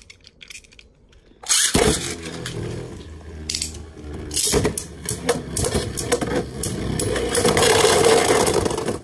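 Beyblade Burst spinning tops (Vanish Fafnir against Cho-Z Valkyrie) launched with a sudden loud start about a second and a half in. They then whir and clash in a clear plastic stadium, a steady spinning rattle broken by sharp knocks, which grows louder near the end and then stops suddenly.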